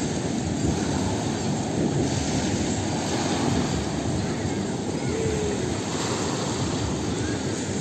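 Steady rushing of the sea: small waves washing onto the beach, with surf breaking on the reef offshore. A brief falling voice call comes about five seconds in.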